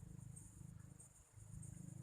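Faint chorus of wild animals: a high insect chirp repeating about three times a second over a low, finely pulsing trill that swells and fades.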